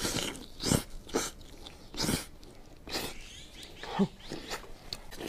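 Close-up eating sounds of a mouthful of spicy meat-stuffed lamb stomach: wet smacking and slurping in short bursts, roughly one a second.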